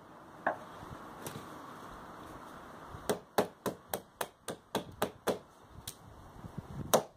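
MSK-1 survival knife chopping into an upright piece of wood: a couple of single chops, then a quick run of about nine chops, roughly four a second, from about three seconds in, and a last hard chop near the end.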